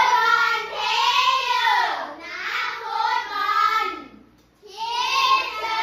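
A group of children singing in unison in long, drawn-out phrases, with a short break about four seconds in.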